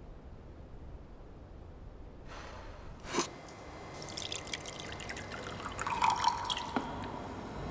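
Liquid dripping and trickling with fine crackling ticks, after a soft hiss and one sharp click about three seconds in.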